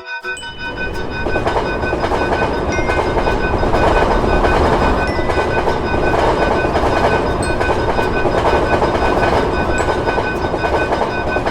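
Train passing through a Dutch level crossing, its rolling noise swelling in about a second in and holding steady, while the crossing's warning bell rings on with an even, pulsing tone.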